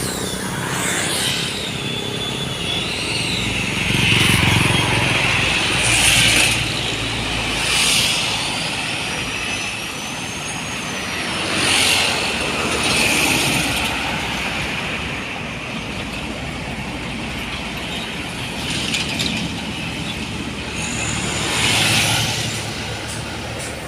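Road traffic passing, with the noise swelling loud every few seconds as vehicles go by.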